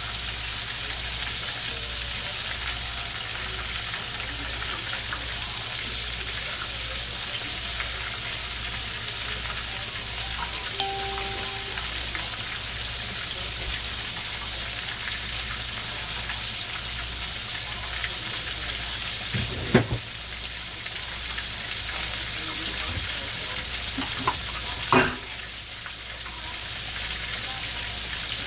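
Breaded chicken pieces frying in hot oil in a cast-iron skillet: a steady, dense sizzle. Two sharp knocks cut through it, one about two-thirds of the way in and another about five seconds later.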